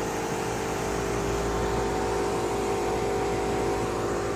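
A motor-driven machine running steadily, a constant whirring hum with a few fixed tones that do not change in pitch.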